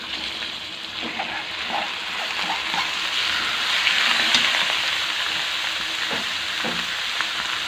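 Sliced beef sizzling as it is tipped into a hot wok of fried shallots and garlic, the sizzle growing louder over the first few seconds as the meat goes in, then steady.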